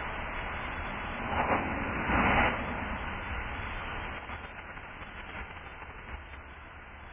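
Steady outdoor rumble and hiss through a doorbell camera's narrow-band microphone, with two brief louder swells about one and a half and two seconds in, then slowly fading.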